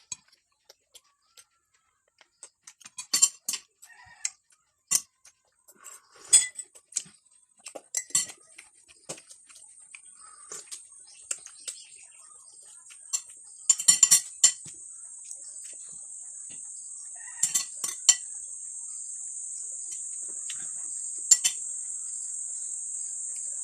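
Spoon and fork clinking and scraping on a plate at irregular intervals, with a rooster crowing in the background. A steady high-pitched insect drone fades in from about eight seconds in and grows louder.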